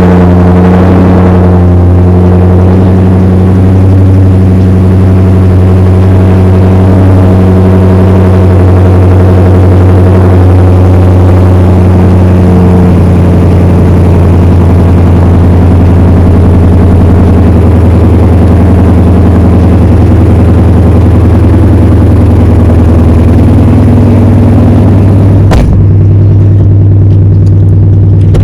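Dodge Challenger engine idling steadily just after being started, a loud, even low hum. There is a sharp click near the end, after which the sound becomes duller.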